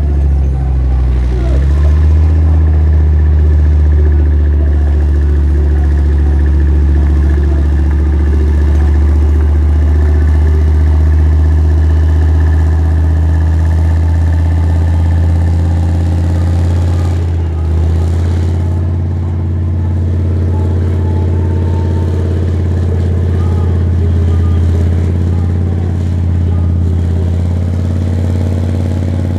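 Gepard tank's 37-litre MTU ten-cylinder multi-fuel diesel engine running under heavy load while dragging a tractor-pulling sled: a loud, deep, steady drone. The pitch rises slightly about two seconds in and dips briefly a little past halfway.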